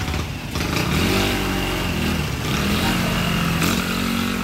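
Motorcycle engine running close by, its pitch rising and falling as it revs, coming in about half a second in.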